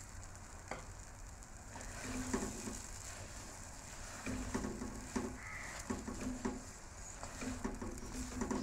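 Silicone spatula stirring and scraping semolina halwa and sugar around an aluminium pot in repeated strokes, with the halwa sizzling as it cooks.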